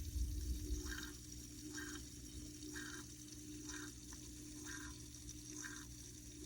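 Small tabletop waterfall fountain running: water trickling over the rocks with a steady low hum from its pump, and a short gurgle repeating about once a second.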